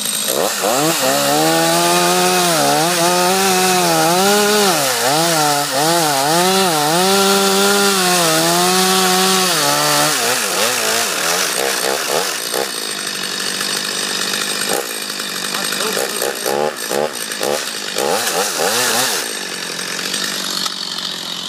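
Two-stroke chainsaw cutting through a wooden utility pole. Its engine note sags and recovers about once a second as the chain bites into the wood, then turns more uneven in the second half and drops off near the end as the cut finishes.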